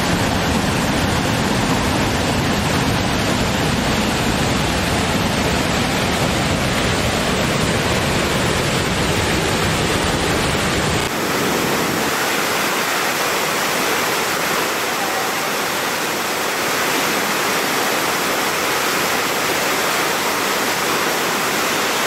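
Steady rushing of falling water from a wide waterfall, full and deep. About eleven seconds in it cuts abruptly to a different, larger set of falls whose rush is thinner and hissier, with less low rumble.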